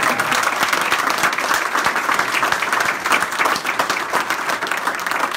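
A small crowd applauding: many hands clapping steadily, fading out just after the end.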